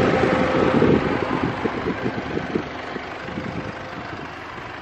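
A car's engine and tyres at low speed, an uneven rumble that grows quieter toward the end.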